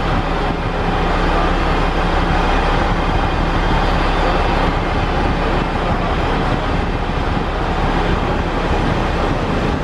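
Passenger train hauled by an electric locomotive approaching the platform: a steady rumble with a constant low hum underneath.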